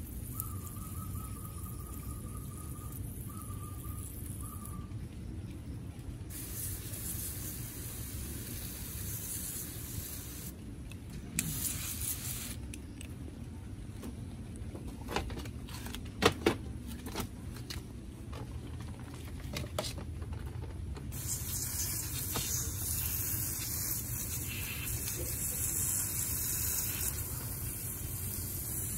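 Water hissing out of a hose watering wand's spray nozzle onto potted succulents, coming and going in short spells, then spraying steadily through the last third. A few sharp clicks and knocks about halfway through are the loudest sounds.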